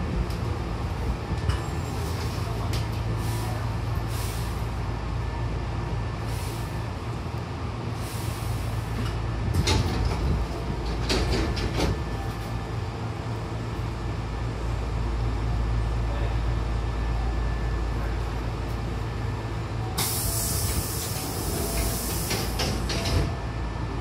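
Sliding passenger doors of a Hankyu commuter train opening and closing at a station stop, over the steady low hum of the stopped train. Hisses of air and a run of knocks come as the doors open. A loud hiss of air starts about twenty seconds in as they close, and a thud follows near the end.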